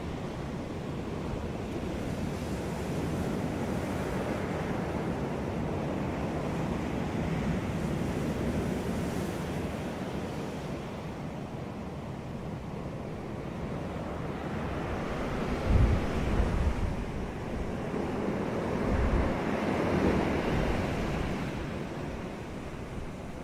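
Ocean surf washing onto a beach, a steady hiss that swells and ebbs as waves break. A few brief low thumps of wind on the microphone come about two-thirds of the way in.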